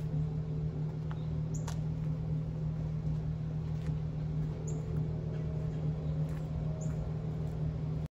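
Chrysler 300S's V6 with a straight-piped rear exhaust idling steadily, a low even drone.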